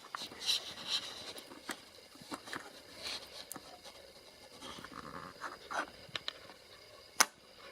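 Light clicks and scraping of hands working a motherboard's M.2 heatsink loose, with one sharp click near the end.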